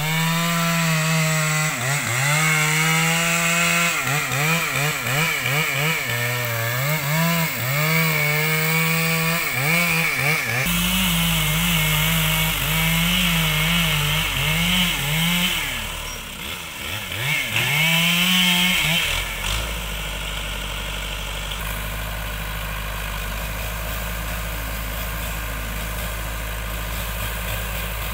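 Two-stroke chainsaw cutting wood, its engine revving up and dropping back again and again. About ten seconds in, the steady low drone of a backhoe loader's diesel engine idling joins it. The chainsaw stops near nineteen seconds, leaving the backhoe idling.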